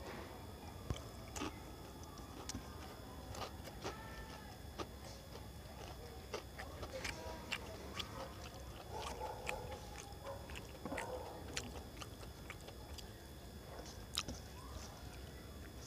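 A man chewing and smacking his lips as he eats rice and fried fish by hand, with short, sharp mouth clicks scattered throughout.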